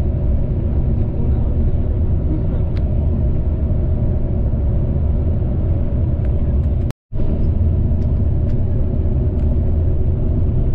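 Bus engine and road noise heard from inside the passenger cabin while it drives, a steady low rumble. The sound cuts out completely for an instant about two-thirds of the way through.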